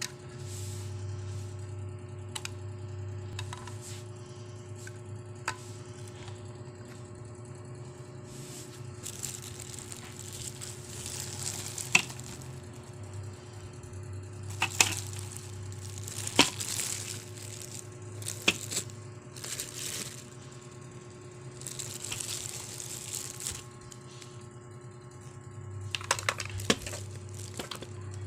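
Scattered sharp clicks and taps with short spells of rustling, as of things being handled, over a steady low hum.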